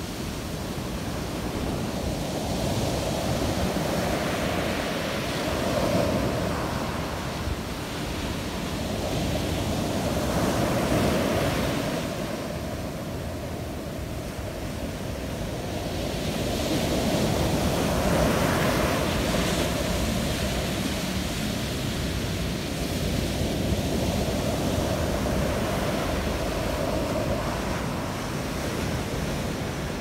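Mediterranean Sea surf breaking and washing up a coarse sand and pebble beach, a steady rush that swells and ebbs every five to seven seconds as each wave comes in.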